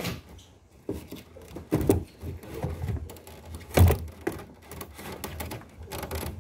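Irregular knocking and clattering, loudest about two and four seconds in, over a low rumble.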